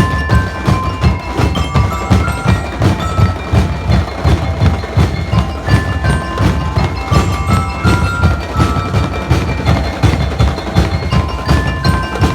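Drum and lyre band playing: bell lyres carry a melody of short ringing notes over a steady, regular drum beat.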